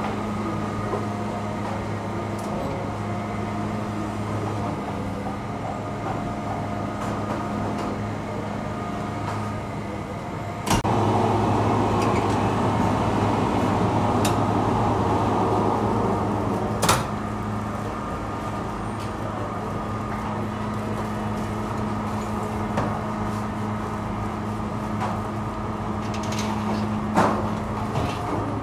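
Bakery machinery humming steadily. About a third of the way in, a louder rushing noise starts with a sharp click, runs for about six seconds and stops with another click. A few light knocks come near the end.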